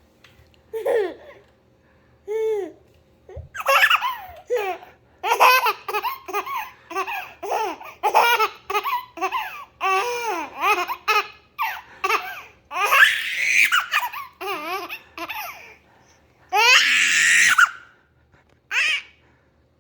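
A baby laughing in repeated bouts of short giggles and belly laughs, with longer, louder shrieking laughs in the second half.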